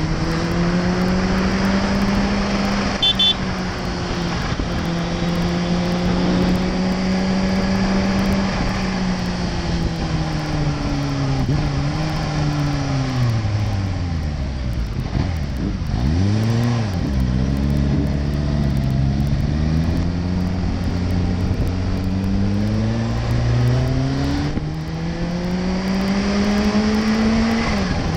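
Kawasaki Ninja H2's supercharged inline-four engine running at steady cruising revs, then falling away in the middle with a couple of short throttle blips, and climbing steadily again near the end before a sudden drop at a gear change. A brief high beep about three seconds in.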